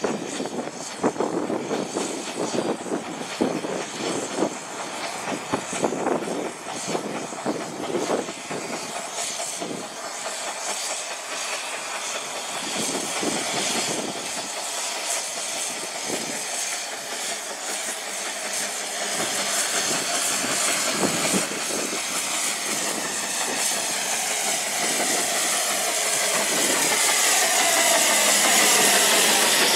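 Narrow-gauge steam locomotive pulling away with its coaches: exhaust chuffs and hissing steam from the open cylinder drain cocks, growing louder as the engine draws close and passes.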